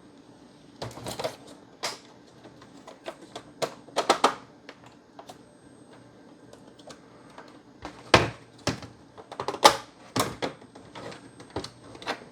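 Irregular clicks, snaps and knocks of plastic and metal as an Xbox One S's metal internal chassis is pried and worked loose from its plastic case. The loudest knocks come around four, eight and ten seconds in.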